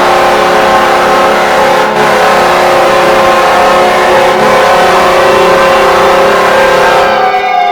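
Buffalo Sabres 1998-99 arena goal horn blaring, a loud steady chord of several held tones over a noisy background. About seven seconds in, the horn drops away and tones that glide up and down begin.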